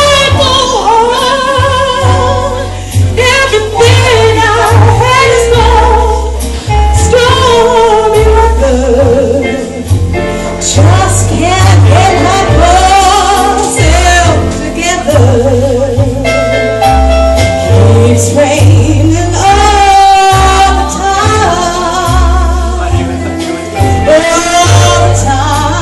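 A woman singing a jazz-blues ballad live into a microphone, holding long notes with a wavering vibrato, over a band with drums and a heavy bass line.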